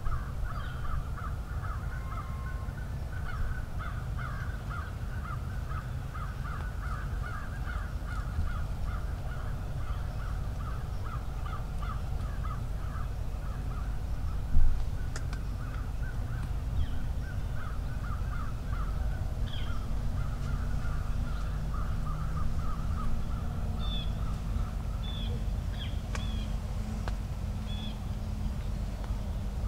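Crows cawing, many calls running over one another without pause until they die away about three-quarters of the way through, over a steady low rumble. A single sharp thump about halfway, and a few short high chirps near the end.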